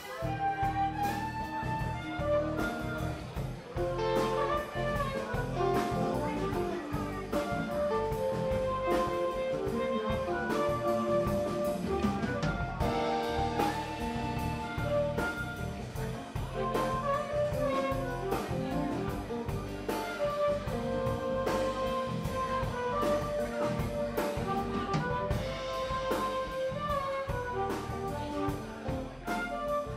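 Background music with a steady drum beat and a held, moving melody line.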